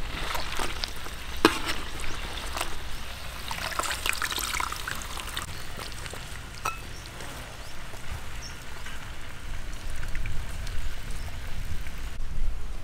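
Hot chicken juices crackling and dripping in a wok as a roasted chicken is lifted out with metal tongs, with a few sharp clicks of the tongs against the pan. The crackling is densest about four seconds in and dies down after about five seconds.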